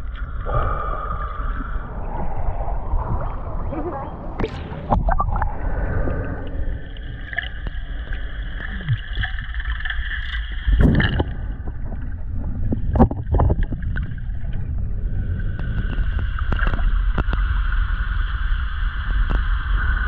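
Boat motor whine over a steady low rumble of water. The whine comes and goes, and scattered clicks and knocks sound throughout, the strongest about 11 and 13 seconds in.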